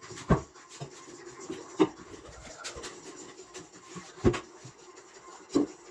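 Four sharp clicks or knocks, irregularly spaced one to two and a half seconds apart, over faint room noise.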